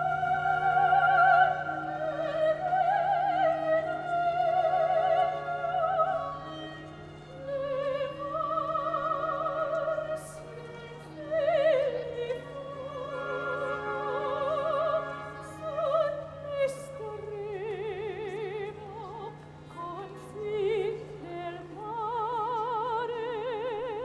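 A soprano singing opera, long held notes with a wide vibrato, over a steady low hum.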